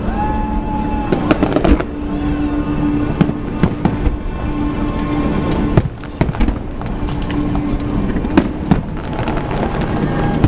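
Aerial fireworks shells bursting, many sharp bangs and crackles in quick succession.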